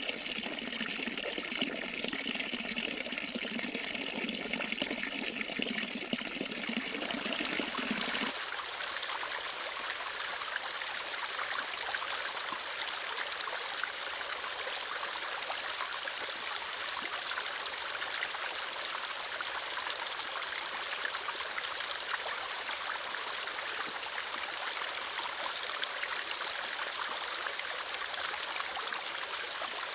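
Running water of a stream flowing steadily. About eight seconds in, the sound switches abruptly from a fuller, lower rush to a thinner, hissier rush.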